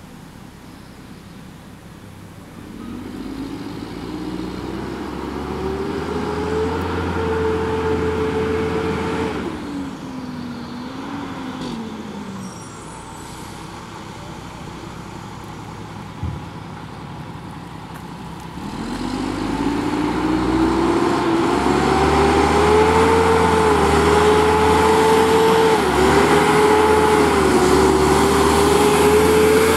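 Diesel engine of a Mack MR garbage truck revving up and holding, then dropping back to a lower note around ten seconds in. From about nineteen seconds it revs up again and holds with small wavers, getting louder as the truck drives closer.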